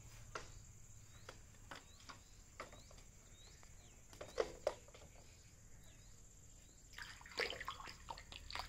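Faint scattered clicks and taps with small birds chirping in the background; about seven seconds in, a stick scrapes and swishes in shallow water on a concrete pool floor as it prods at a monitor lizard.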